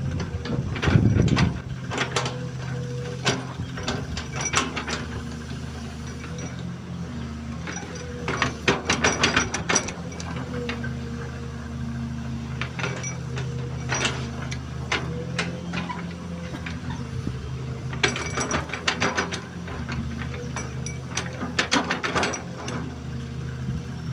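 XCMG XE215C excavator's diesel engine running steadily, with bursts of metallic clanking and rattling every few seconds as the machine works.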